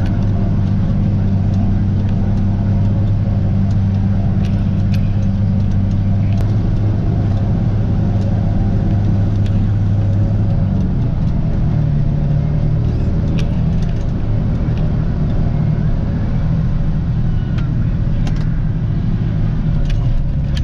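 Tractor engine running steadily under load, pulling a PTO-driven forage harvester through standing corn, heard from inside the cab. The engine note shifts about halfway through, and faint scattered ticks sit over the drone.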